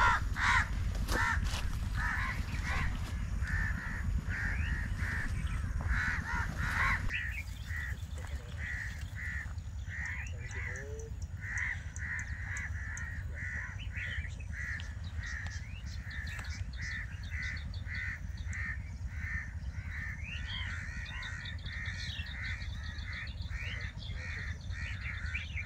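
A bird calling over and over in short, harsh notes, about two to three a second, without a break. A low rumble of wind or handling on the microphone lies under it and drops away about seven seconds in.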